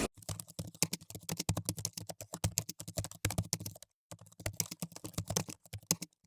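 Rapid, irregular clicking, several clicks a second, with two brief pauses about four and six seconds in.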